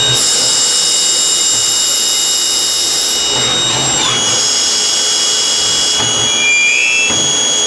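Manurhin K'MX Swing 1026 Swiss-type CNC lathe machining brass: a steady high-pitched whine over a hiss of cutting. The whine steps slightly down in pitch about four seconds in.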